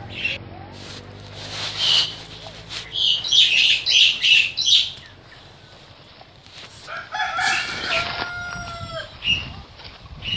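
Chickens giving a run of loud, harsh calls, then a rooster crowing once, about seven seconds in.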